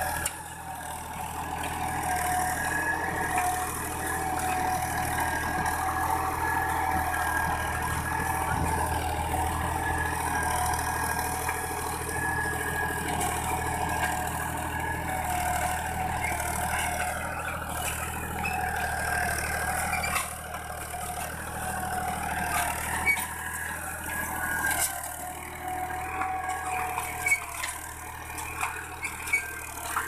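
Farm tractor's diesel engine running steadily under load as it pulls a tine cultivator through the soil, with a few sharp clicks near the end.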